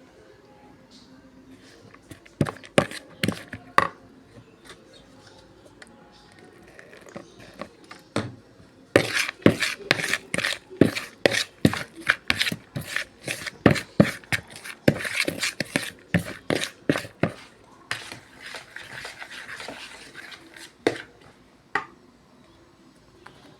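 Kitchen utensils knocking and clattering against dishes and pans, a series of sharp clacks that come thick and fast in the middle of the stretch, followed by a few seconds of hissing noise and a couple of last knocks.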